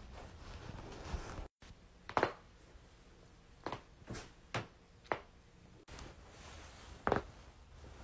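Neck joints cracking as the head is twisted by hand: a loud crack about two seconds in, a quick run of four smaller pops, then another loud crack near the end.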